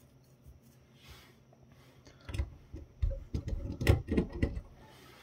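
Fingers handling the exposed circuit board and plastic frame of a disassembled digital camera: a cluster of light clicks and knocks starting about two seconds in.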